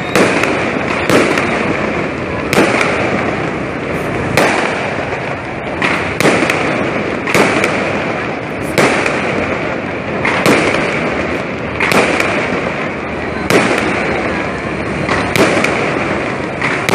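Aerial fireworks going off overhead: sky rockets and bursting shells give sharp bangs about every second or two over a continuous hiss.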